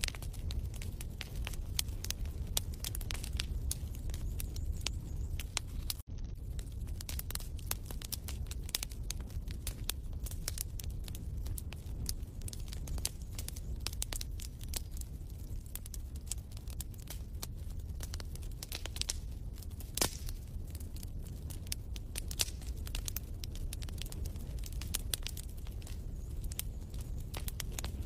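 Wood fire crackling in a fireplace: scattered sharp pops and snaps over a low steady rumble, cutting out for an instant about six seconds in.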